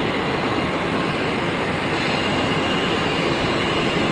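Jet engines of an Antonov An-72-family twin-turbofan transport coming in to land: a steady rushing noise with a faint high whine.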